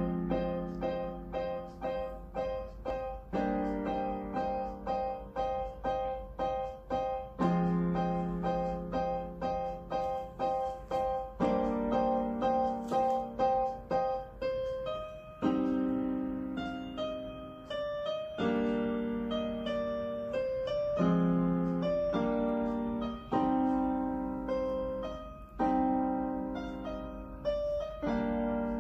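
Electronic keyboard played with a piano sound: a note repeated about twice a second over held low chords that change every few seconds. About halfway through it turns to a moving melody over chords that change more often.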